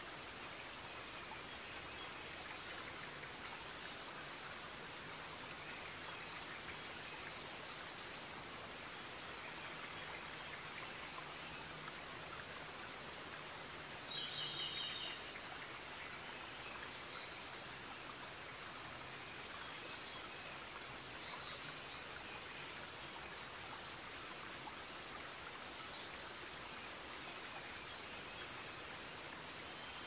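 Forest ambience: a steady rushing background with small birds chirping at intervals. Short high calls come every few seconds, with a quicker run of notes about halfway through.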